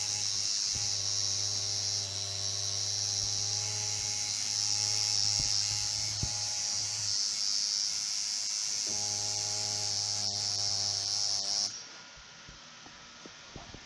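Electric tattoo machine running against skin with a steady buzzing hum and a high hiss. The hum drops away for a couple of seconds midway, then the whole sound cuts off suddenly near the end.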